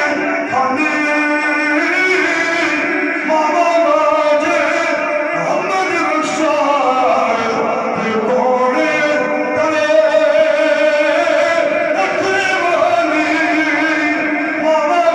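A man singing a naat into a microphone, holding long notes and bending them in melismatic runs.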